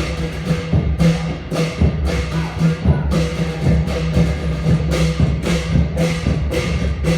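Thai klong yao long-drum ensemble playing a traditional rhythm, with drum and cymbal strokes falling about twice a second over a steady low tone.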